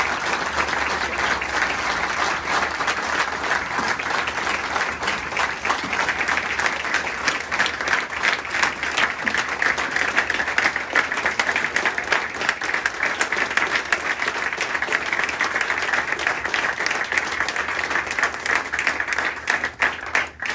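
Audience applauding, a dense, sustained clapping that stops fairly suddenly near the end.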